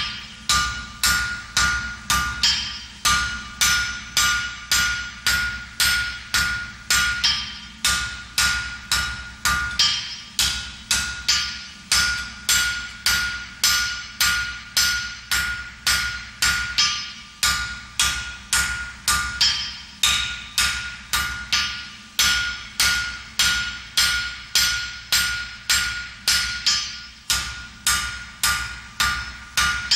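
Blacksmith's hand hammer striking a red-hot thin iron bar on an anvil in a steady rhythm, about one and a half blows a second, each blow followed by the anvil's ring. The smith is forging a sharp angle in the thin bar.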